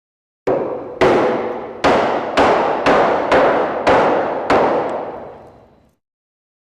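Hammer strikes with an added echo: eight blows at an uneven pace, roughly half a second apart, each trailing off in a long reverberant ring that fades out about a second and a half after the last blow.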